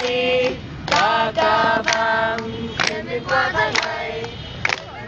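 A group singing a song together, women's voices leading, with hand claps keeping time about once a second.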